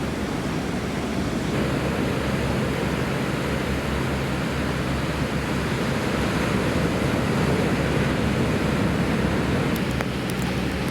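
Steady rush of ocean surf mixed with wind buffeting the microphone, an even, unbroken noise.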